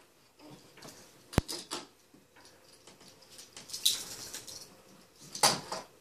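Small wooden toy trains and vehicles clicking and scraping against a wooden train table as they are handled, with a sharp click about a second and a half in and a louder clatter near the end.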